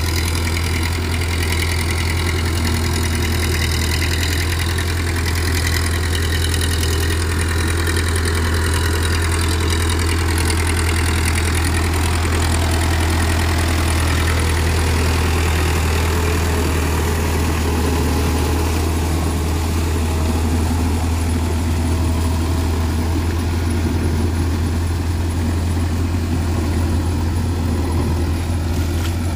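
Powertrac Euro 55 tractor's diesel engine running steadily under load as it pulls a rotavator through a flooded paddy, with a strong, even low hum.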